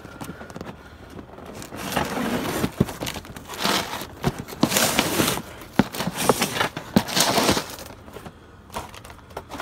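Cardboard boxes being stomped and crushed flat underfoot: a run of crunching, crackling bursts with sharp snaps, starting about two seconds in and dying away shortly before the end.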